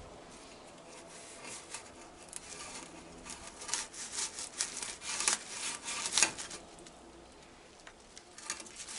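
Tobacco leaf being pulled backwards and forwards through a stem-stripping tool, a run of quick rasping, rustling strokes from about three to six and a half seconds in, the loudest near the end of the run.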